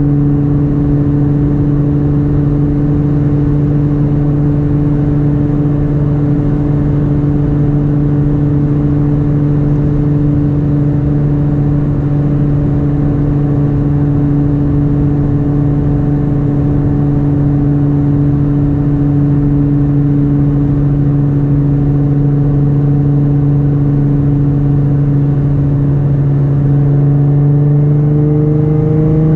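Nissan GT-R's twin-turbo 3.8-litre V6 through a Boostlogic 4-inch catback exhaust with titanium midpipe, cruising with a steady exhaust drone. Near the end it rises gently in pitch as the car picks up speed.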